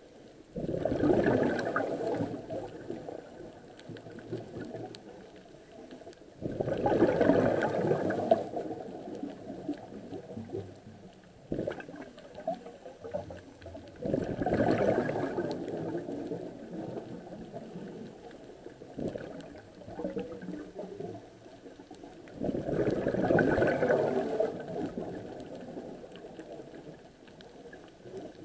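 Scuba diver's exhaled breath bubbling out of the regulator, heard underwater: four bubbling bursts of about two seconds each, one per breath, roughly seven to eight seconds apart.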